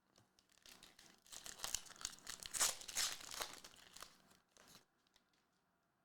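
A trading card pack wrapper being torn open and crinkled by hand: a run of crackling that builds over about four seconds, loudest in the middle, then stops.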